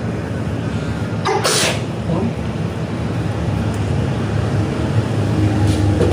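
A person sneezing once, a short sharp burst about a second and a half in, over a steady low hum.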